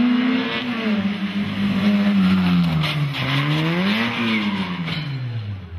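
A small hatchback rally car's engine coming off the throttle into a hairpin: its pitch falls, rises once briefly about four seconds in, then drops away as the car slows, with tyres squealing as it slides round the bend.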